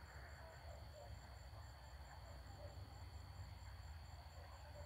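Faint night insect chorus: one steady high trill and a second high note pulsing about three times a second, over a low steady hum.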